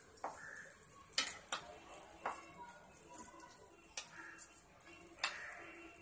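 Stirring and scooping in a pan of simmering vegetables: a flat spatula and a steel spoon give about six light, sharp clicks against the non-stick pan and each other over a faint background hiss.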